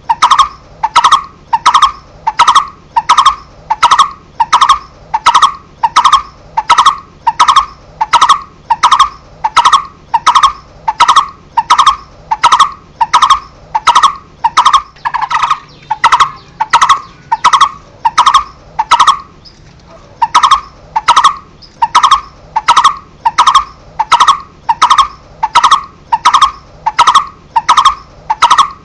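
Barbet ('cu rốc') calling: a long, steady series of short hollow 'tuk' notes, about one and a half to two a second, with a brief pause about two thirds of the way through.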